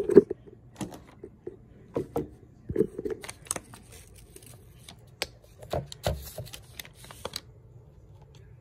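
Irregular clicks, taps and rustles of hands handling modelling clay and craft things on a brown-paper-covered table, over a faint steady hum; the handling stops about seven seconds in.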